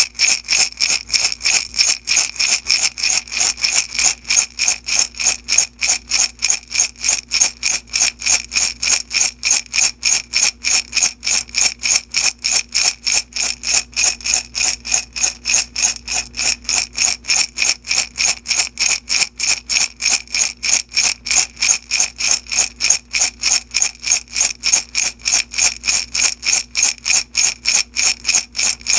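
Small beads shaken back and forth in a glass jar, a bright rattle in a steady rhythm of about three shakes a second.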